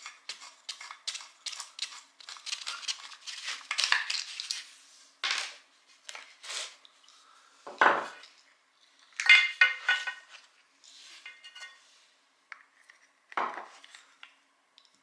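Tools and small hard parts clicking, clinking and clattering in irregular handling noises while a septic aerator air pump is taken apart, with a brief ringing clink about nine seconds in.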